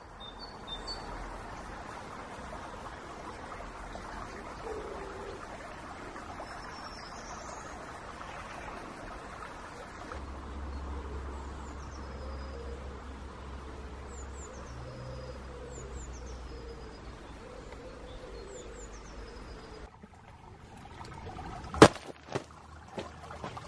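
Woodland ambience with a steady hiss and high, thin bird calls: from about ten seconds in, short falling notes repeated every second or two. Near the end comes a single sharp crunch, the loudest sound, from a sneaker stepping onto riverbank gravel.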